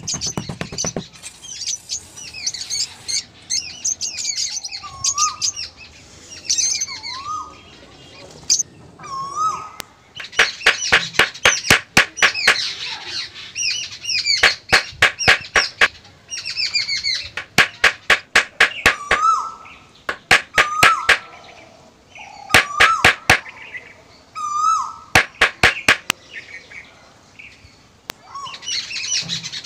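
Several birds chirping and calling, with short whistled notes and higher twitters. From about a third of the way in, runs of fast sharp clicks come in again and again, each run lasting about a second.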